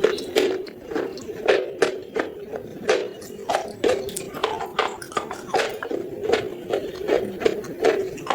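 Close-miked chewing of dry clay pot pieces, with sharp crunches about twice a second as the pieces break between the teeth.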